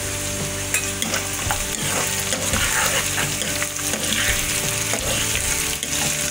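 Sliced onions and potato pieces sizzling in hot oil in a kadai, stirred with a spatula that scrapes and taps against the pan now and then.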